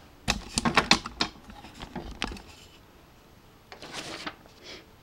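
Metal parts of a mesh rolling cart being handled: a quick run of light clicks and rattles lasting about a second, a few more clicks a moment later, and a short rustle about four seconds in.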